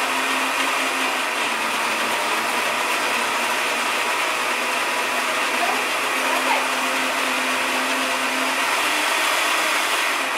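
Optimum high-speed countertop blender running steadily, blending a thick chocolate, coconut and nut mixture, then cutting off near the end.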